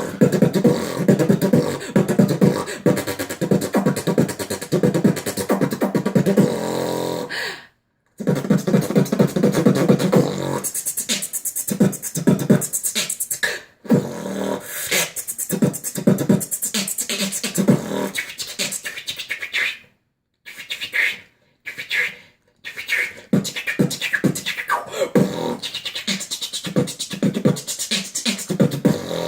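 Beatboxing: fast vocal percussion of kicks, snares and clicks made with the mouth, with a hummed bass line under it for the first stretch. It stops briefly a few times.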